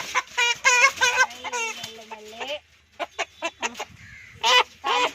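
Country chicken squawking and clucking in a run of repeated calls, then several short sharp squawks and two loud ones near the end: the alarm calls of a chicken being caught.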